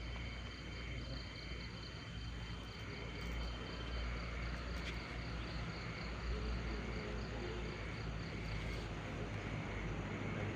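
Night insects, crickets chirping in an evenly repeating pulse, with a thin steady high buzz that stops partway through. A low rumble runs underneath.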